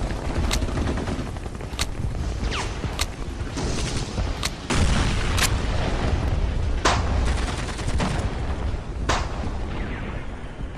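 Battle sound effects: scattered gunshots and blasts, about seven sharp cracks at irregular intervals, over a continuous low rumble.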